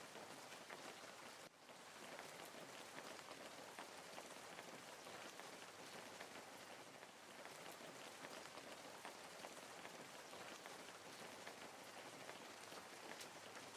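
Wood fire crackling: many small, irregular pops and snaps over a soft, steady hiss, faint throughout, with a brief drop in level about one and a half seconds in.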